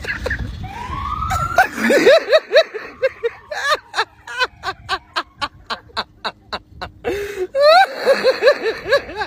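A police car siren gives one short rising whoop, then a person bursts into hard laughter: quick bursts of laughing that turn into wheezing gasps about four a second, then a second loud round of laughing near the end.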